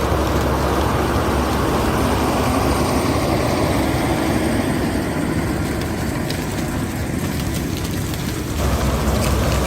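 John Deere S680 combine harvester running steadily at work in corn, a dense mechanical rumble. The sound changes abruptly near the end.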